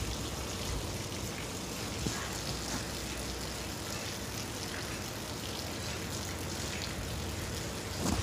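Steady outdoor background noise, an even hiss with a couple of faint clicks near the start and about two seconds in.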